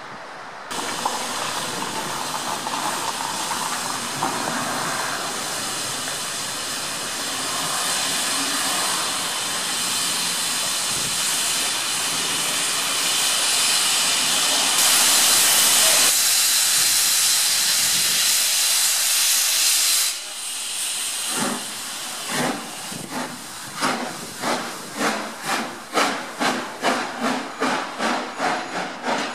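Steam locomotive letting off a loud, steady hiss of steam that grows louder about fifteen seconds in and cuts off suddenly about five seconds later. The locomotive then starts away, its exhaust chuffs coming faster and faster.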